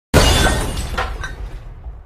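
Breaking-glass crash sound effect: a sudden loud smash just after the start, with a couple more sharp hits of falling pieces about a second in, dying away over the next second or so.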